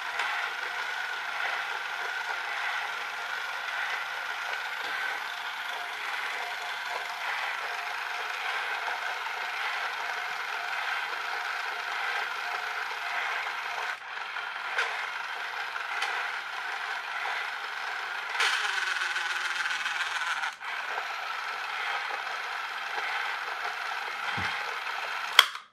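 Battery-powered toy train's small electric motor and clear plastic gear train running with a steady rattling whir. Its split drive gear slips out of mesh with the back-wheel gear, so the train barely moves. A few clicks along the way, a louder stretch about two-thirds in, and a sharp click just before it stops.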